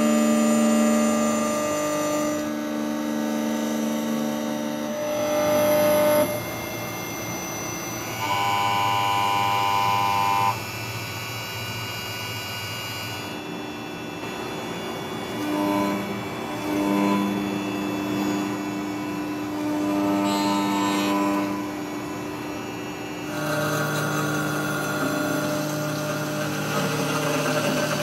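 CNC machine cutting a metal part under coolant: a steady, pitched whine from the spindle and cutter that jumps to a new pitch and level every few seconds.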